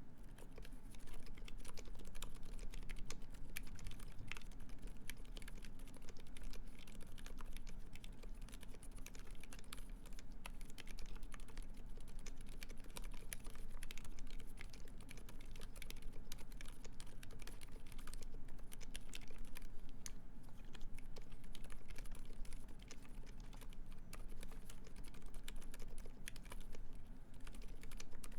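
Continuous fast typing on a Uni660 split mechanical keyboard with lubed Silent Alpaca silent linear switches, a brass plate and GMK keycaps: dense, irregular, very quiet keystrokes without a sharp click.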